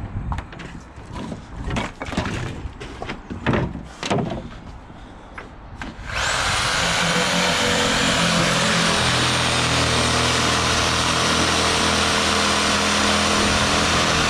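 Einhell 1050-watt corded reciprocating saw cutting through a timber roof rafter, starting about six seconds in and running steadily with a high whine. Before it starts, a run of knocks and taps.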